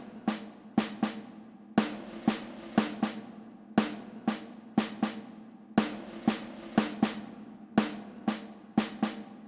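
Snare drum playing a steady rhythm: strokes in groups of three, each ringing briefly, with the groups repeating about every two seconds and a quicker run of strokes near the end.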